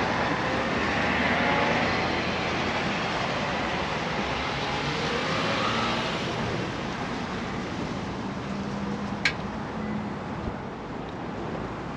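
Road traffic noise with vehicles passing, their pitch gliding as they go by, and a single sharp click about nine seconds in.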